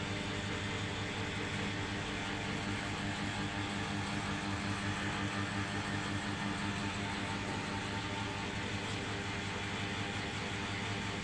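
A steady mechanical hum with several constant tones over a hiss, unchanging throughout.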